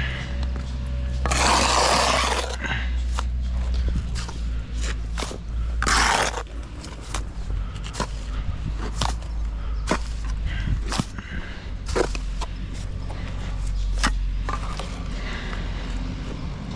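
Work noise with a steady low rumble, scattered knocks and clicks, and two short bursts of rough scraping noise about a second and a half in and around six seconds in.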